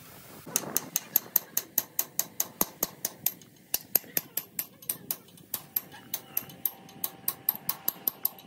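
Rapid light metal-on-metal taps, several a second, as a steel bar is tapped against a drive-shaft universal-joint yoke held in a lathe chuck. A faint steady hum joins about halfway through.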